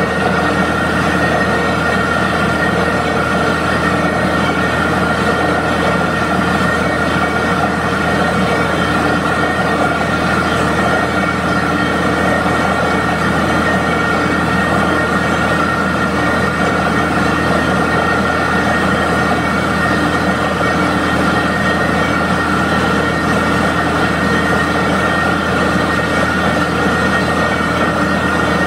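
Borewell drilling rig running steadily while drilling with compressed air: a loud, even machine noise with a fast fine rattle, as muddy water and rock cuttings blow out of the bore around the drill pipe.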